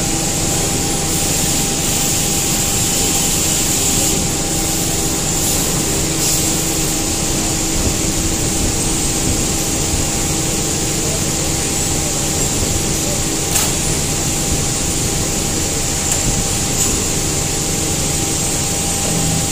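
Steady machine-shop noise: machinery running continuously with a constant hum and hiss.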